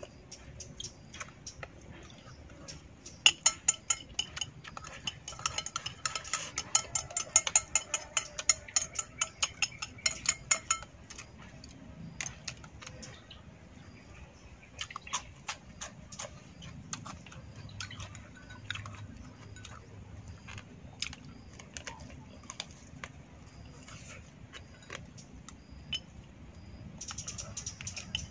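Eating with chopsticks from a ceramic bowl: chopsticks clinking and clicking against the bowls. A fast run of sharp clicks starts about three seconds in and lasts roughly eight seconds, then scattered single clicks follow.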